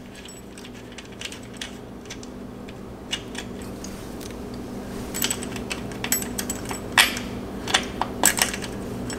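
Scattered small metallic clicks and clinks of nuts, washers and cable terminals being handled at a starter solenoid as its cables are taken off, sparse at first and busier in the second half.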